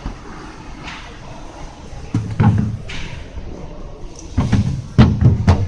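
Freezer or fridge door and drawers being handled, heard as a few knocks and thumps about two seconds in, then a louder run of them in the last second and a half.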